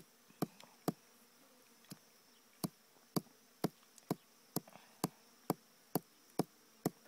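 Sharp knocks of hand-pounding on a hard surface, about two a second, with a short break a little after the first second. Under them runs a faint, steady, high insect drone.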